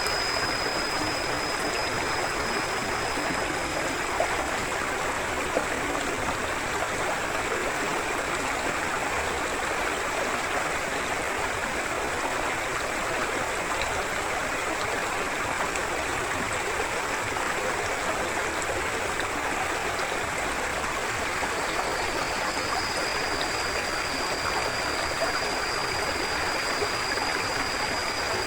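Forest river flowing: a steady, even rush of running water. A thin, high, steady tone sits above it for the first few seconds and again over the last several seconds.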